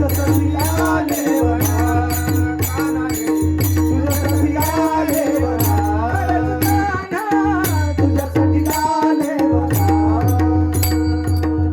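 Music from a Marathi devotional song: a steady percussion beat with rattle-like strokes over a pulsing bass and a held drone, under a winding melody line.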